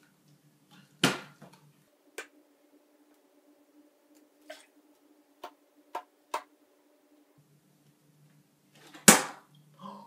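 Plastic water bottles knocking and tapping as they are handled and stacked: a sharp knock about a second in, several light taps in the middle, then the loudest thud near the end as a flipped water bottle lands upright on a Rubik's cube on top of another bottle.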